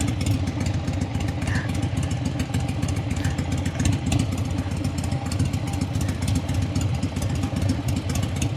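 Motorcycle engine running steadily while riding: a continuous low rumble under a constant rush of noise.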